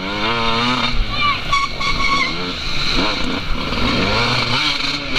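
Off-road racing engine heard from on board, revving hard up and down over and over, its pitch rising and falling every second or so as the rider works the throttle.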